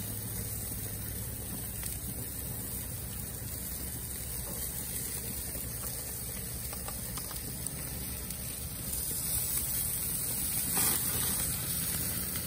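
Meat and chicken skewers sizzling on a grill over open flames, a steady hiss, as herb sauce is spooned over them. The sizzle gets louder near the end.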